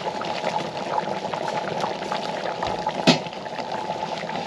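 Pan of fish simmering on the stove, bubbling steadily with small crackles, and one sharp clack about three seconds in.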